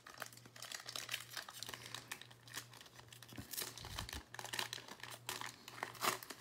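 A plastic-foil trading-card pack wrapper being torn open and crinkled by hand, in a run of irregular crackles.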